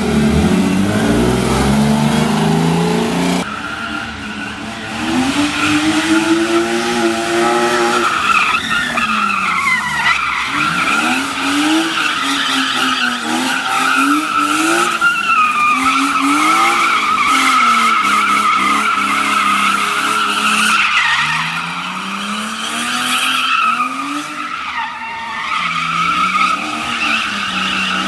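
BMW E36 drift car's engine revving up and down over and over as the car drifts in circles. From about eight seconds in, its rear tyres squeal steadily.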